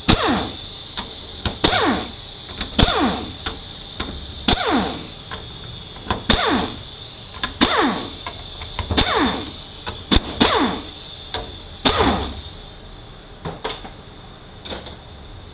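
A power tool spinning out the 10 mm bolts on the 4R75W transmission's plate. There are about nine short whirs, each starting with a click and falling in pitch, roughly every one and a half seconds, stopping about 12 seconds in.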